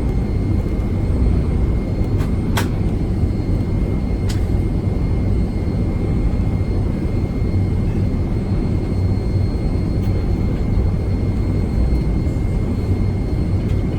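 Steady cabin noise of a Boeing 757-200 with its jet engines running: an even low rumble with a faint steady high whine. Two brief clicks come through about two and a half and four seconds in.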